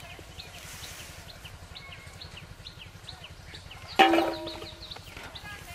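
A potato dropped into a stainless steel bowl about four seconds in: a sharp metallic clink that rings briefly. Birds chirp throughout.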